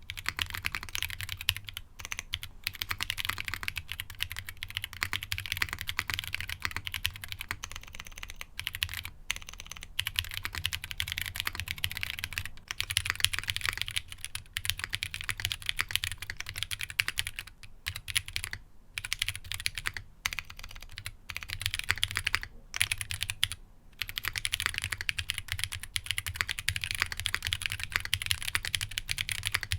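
Rapid, continuous typing on a Ginkgo65 gasket-mount mechanical keyboard with an aluminium plate and no foam, fitted with Bolsa Supply Corsa long-pole tactile switches (nylon housing, POM stem), each key bottoming out crisply. The typing stops briefly a few times.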